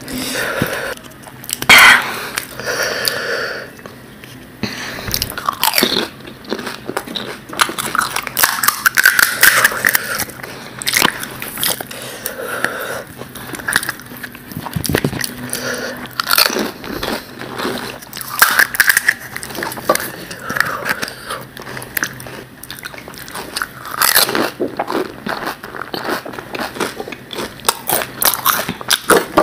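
Close-miked crunching and chewing of crisp fuchka (panipuri) shells: irregular sharp crunches and bites that keep coming all the way through.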